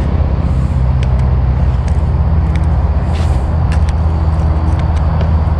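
A steady, loud low motor hum, with a few faint clicks over it.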